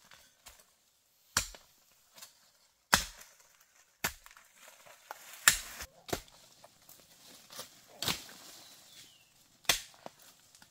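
Long-handled hoe chopping into soil again and again: about eight sharp strikes, roughly one a second, with a scrape of loose dirt between them.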